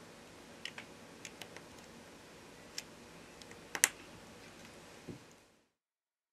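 Faint light clicks and taps of small phone parts being handled and fitted into the phone's frame, over a low steady hiss, with one sharper click a little before four seconds in. The sound cuts off abruptly near the end.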